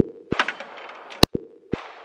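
SCCY CPX-3 semi-automatic pistol firing .380 ACP rounds, a slow string of single shots: one just as it begins and another about a second in, each followed by fainter short cracks.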